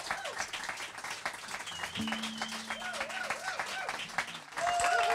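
Audience applauding at the end of a live band's song, with wavering held tones over the clapping. About four and a half seconds in, a louder sustained note comes in.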